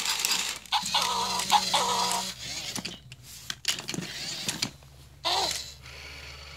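Tekno robot Dalmatian toy giving out short electronic sound effects from its small speaker: a warbling run about a second in, and a short falling one past five seconds. A few sharp plastic clicks come in between.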